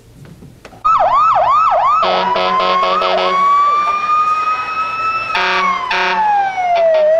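Mobile phone ringing with a loud electronic siren-style ringtone. It opens about a second in with fast swooping wails, about three a second, then turns to rapid beeping over a long slowly rising tone, beeps again, and ends in a long falling glide.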